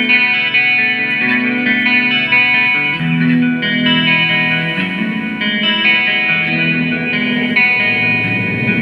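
Guitar music: held notes and chords that change every second or so.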